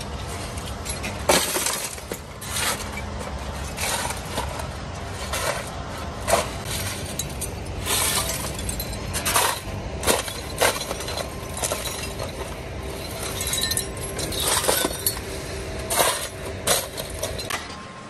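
Pieces of scrap iron clanking and clinking as they are thrown into a steel wheelbarrow, one sharp metallic strike after another at irregular intervals, about one a second.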